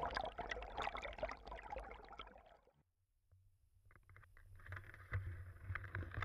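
Water splashing and trickling close to the camera, fading away into a second of silence. Then the low rumble of wind on the microphone, with scattered rustling of dry grass and clothing.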